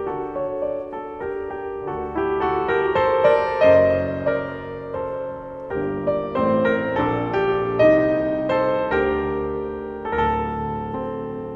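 Soft background piano music, gentle sustained chords and melody.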